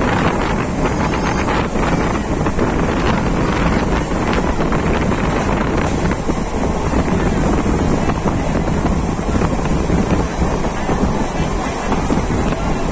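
Wind buffeting the microphone at the open window of a moving local train, over the steady running noise of the train.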